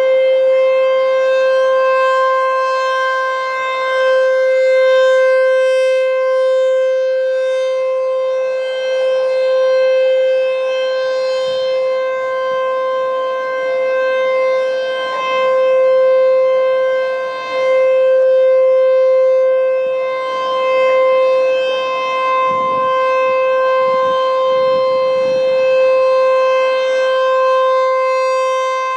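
American Signal Corporation T-128 outdoor warning siren sounding the steady Alert tone at one held pitch. Its loudness swells and fades every few seconds as the rotating siren turns toward and away, with echoes off the surrounding buildings.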